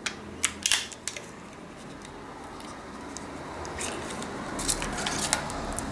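Plastic packaging of a mascara being handled and opened: several sharp plastic clicks and rustles in the first second, then softer crinkling with a few more clicks about four to five seconds in.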